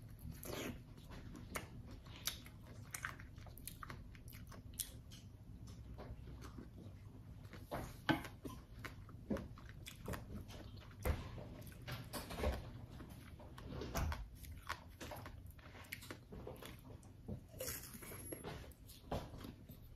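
A person biting and chewing segments of a freshly peeled orange: irregular wet mouth clicks and smacks, with one louder click about eight seconds in.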